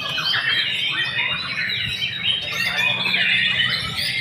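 White-rumped shama (murai batu) singing: a fast, unbroken stream of varied whistles and chattering phrases.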